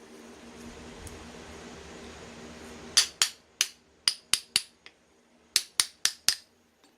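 A hammer tapping on a Ural motorcycle's driveshaft universal joint to seat the bearing caps and retaining clips: about ten sharp taps in two quick runs, starting about three seconds in. A steady low hum runs before the taps.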